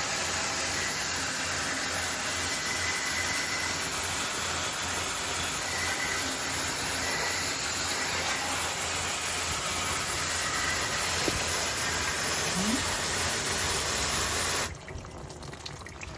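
Water spray from a cleaning sprayer washing a heat pump unit: a loud, steady hiss with a low pump hum beneath it. It cuts off suddenly near the end, leaving faint dripping.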